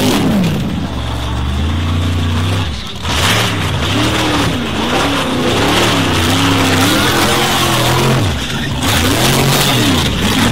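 Formula offroad buggy's racing engine revving hard, its pitch rising and falling again and again as the throttle is worked, with a brief lift about three seconds in. Paddle tyres churn and spray loose sand under the engine noise.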